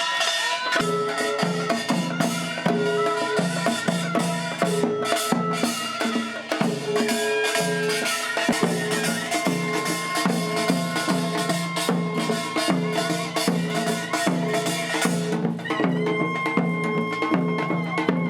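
Samulnori troupe playing Korean traditional percussion music: fast, dense drum strokes and clattering gongs over a steady, repeating low drum beat, with a few held melody notes. The bright clatter drops away near the end, leaving the drum beat and melody.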